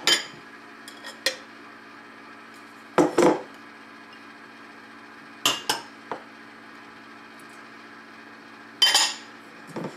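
Kitchen clatter as a mixing bowl is fetched: about half a dozen separate clinks and knocks of dishes and utensils, the loudest about three seconds in and near the end, over a faint steady hum.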